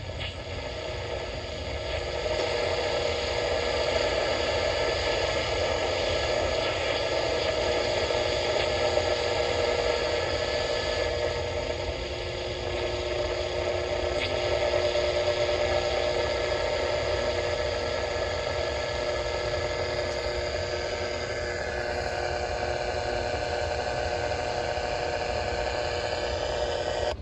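Sony ICF-C492 clock radio's small speaker hissing with static while tuned between stations during a band scan, with the hiss shifting slightly about 21 seconds in as the dial moves.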